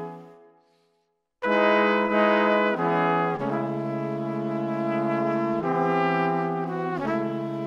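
Background music. One track fades out within the first second, there is a short gap of silence, and then a new track with sustained chords starts abruptly about a second and a half in, changing chord every second or two.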